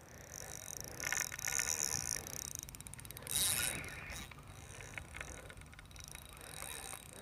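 Fishing reel working against a hooked fish: a fast ratcheting click from the reel, with a brief hiss a little past three seconds in.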